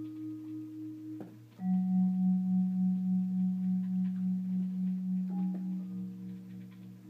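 Vibraphone notes played slowly and left ringing, with a steady pulsing tremolo. A louder low note and a higher one are struck together about a second and a half in, more notes come in near the end, and the sound fades.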